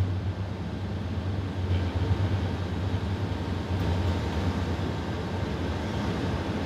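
Steady roar of airflow and jet engines on a Boeing 777 flight deck in the climb after takeoff, with a strong low hum underneath.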